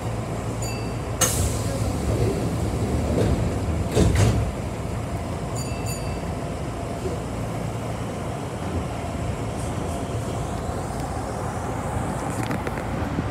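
Kintetsu electric train heard from on board as it starts away from a station platform: a steady hum with a couple of short electronic beeps and a sharp knock about four seconds in, then a faint rising motor whine near the end as it gathers speed.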